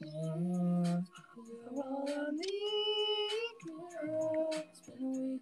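A voice singing unaccompanied: held notes that slide between pitches, in short phrases with brief breaks between them.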